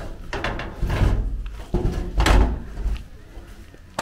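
Wooden boards knocking and scraping at a goat pen's wooden doorway: about four heavy bumps and drags that stop about three seconds in.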